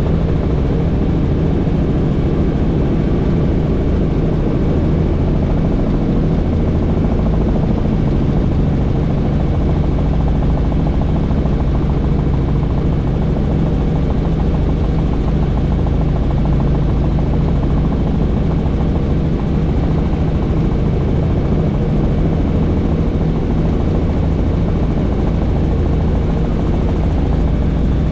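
Helicopter in flight, heard from on board with the doors off: loud, steady rotor and engine noise that holds unchanged throughout.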